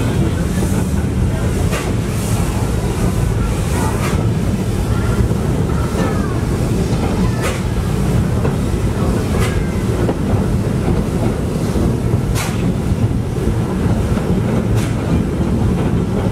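Steam train running along the track: a steady rumble with a sharp click every couple of seconds.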